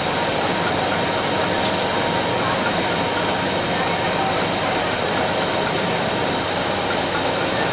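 Steady din of a garment factory floor: machinery running without a break, with background voices in the mix.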